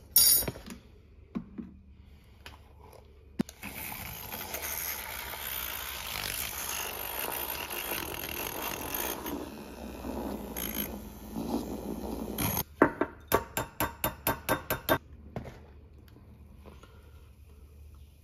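Handheld battery milk frother whirring steadily in a mug of coffee for about nine seconds, frothing it up. It is followed by a quick run of about a dozen light, evenly spaced taps.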